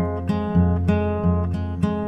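Background music: acoustic guitar picking notes in a steady rhythm, about three a second.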